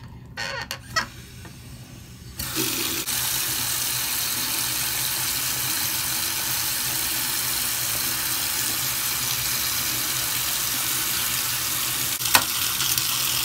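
Bathroom sink faucet being turned on: a few short knocks from the handle, then water running steadily from the tap into the basin, starting a little over two seconds in. One sharp click near the end.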